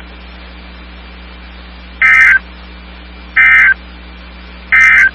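NOAA Weather Radio SAME data tones: three short bursts about a second apart, the EAS end-of-message code that closes the weekly test, over a steady receiver hiss.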